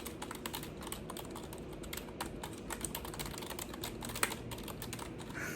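Typing on a computer keyboard: a rapid, irregular run of key clicks.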